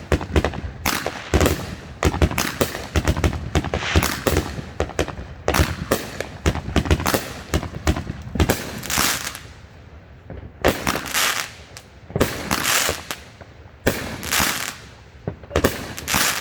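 Fireworks going off: rapid crackling bangs in the first half, then bigger separate booms a second or two apart.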